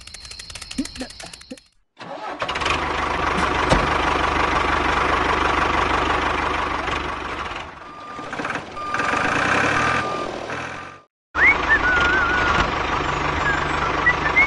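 Tractor engine starting up about two seconds in and running steadily, after faint rapid clicking. The engine dips briefly near eight seconds, cuts out for a moment just after eleven seconds and runs again, with high chirping whistles over it near the end.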